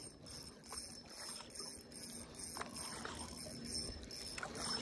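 Spinning reel being cranked to bring in a hooked trout, its gears ticking faintly.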